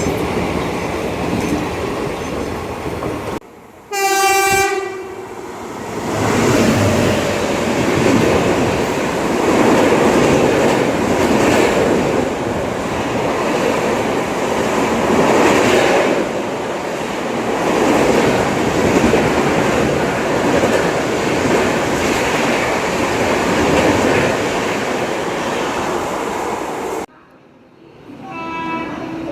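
Indian Railways train horn sounding one short blast, followed by the loud, steady rolling and clattering of a train running past on the tracks. Near the end another horn starts to sound.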